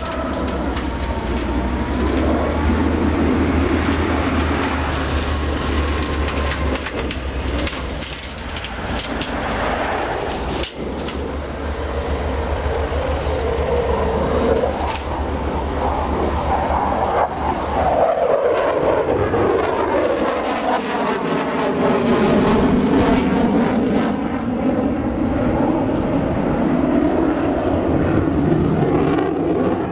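F-15 fighter jet's twin turbofan engines running at high power through a maneuvering pass: loud, continuous jet noise. In the latter part the sound sweeps up and down in pitch as the jet passes over.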